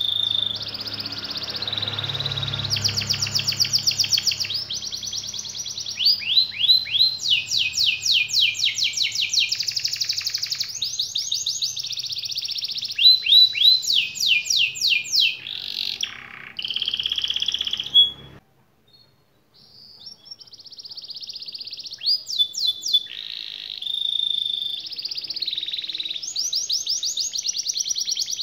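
Domestic canary singing a long, continuous song of fast trills and rolling repeated notes. The song breaks off for about two seconds a little past the middle, then starts again.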